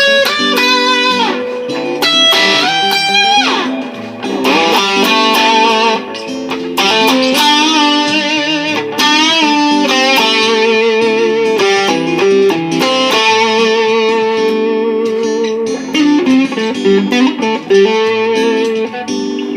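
A Fender Cabronita electric guitar plays a lead solo with string bends and vibrato over a looped Martin JM-OM acoustic guitar rhythm part.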